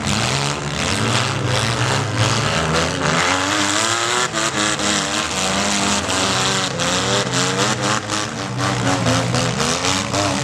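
Several small-car engines revving unevenly at once, their pitches rising and falling, with repeated short sharp knocks over them.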